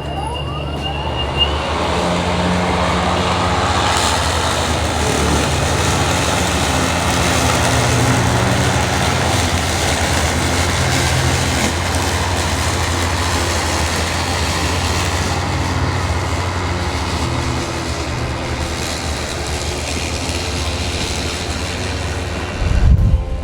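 Battery-powered electric lawn mower with a 20-inch deck running steadily while cutting grass: a constant motor and blade hum with the rush of cut grass. Near the end wind buffets the microphone.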